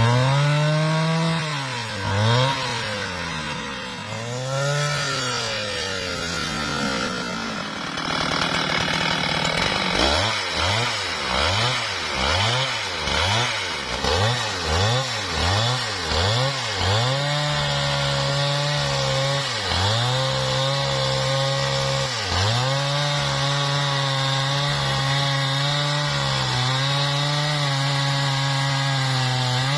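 Husqvarna 395XP two-stroke chainsaw being revved up and down, then blipped in quick short bursts, before it settles into steady high revs sawing through mahogany, with a few brief dips in engine speed.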